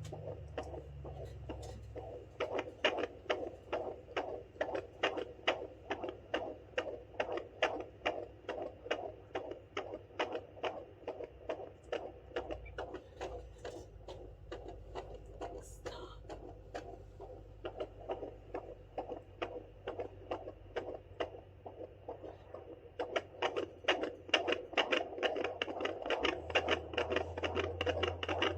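Fetal heartbeat at 32 weeks picked up by a handheld fetal Doppler and played through its speaker: a fast, regular whooshing pulse of a little over two beats a second, over a low hum that swells near the end.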